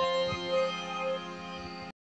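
Harmonium holding a final sustained chord after the last tabla strokes, slowly fading, then cutting off abruptly just before the end.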